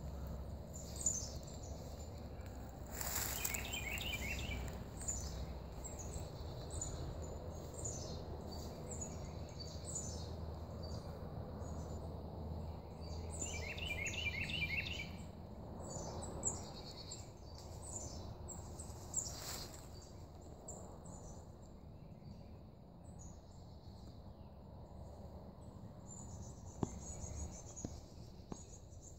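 Woodland birds calling and chirping, with two short trilled songs about three seconds in and again about fourteen seconds in, over a low steady rumble that fades in the second half.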